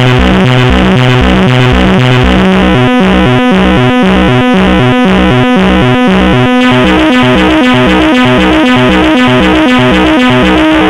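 Loud synthesizer music: a repeating pattern of stepped keyboard notes over a pulsing bass, which breaks up into stuttering cut-outs a few seconds in.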